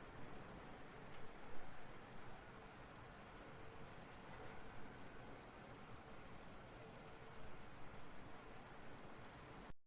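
Grasshopper stridulating: a steady, high-pitched rapid trill that stops abruptly near the end.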